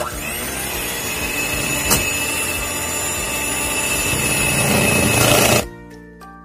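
Electric hand mixer running, its beaters creaming butter in a stainless steel bowl: a steady motor whine that spins up at the start, with one sharp knock about two seconds in. It grows a little louder and then cuts off suddenly near the end, when background music comes back in.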